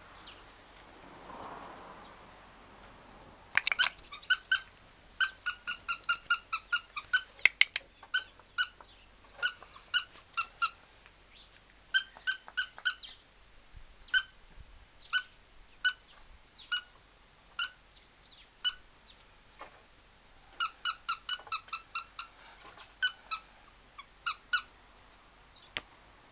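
Squeaky dog toy squeaked over and over in quick runs of short, high squeaks, beginning about three and a half seconds in, with pauses between the runs.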